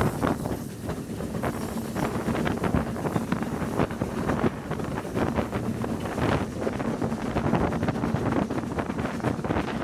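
Wind buffeting the microphone over the running noise of a train hauled by the BR Standard Class 9F steam locomotive 92203 Black Prince, with frequent short, sharp knocks through it.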